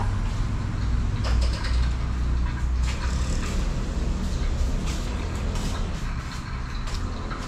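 A steady low rumble, with a few faint, short clicks of a metal spoon against a ceramic soup bowl as she eats.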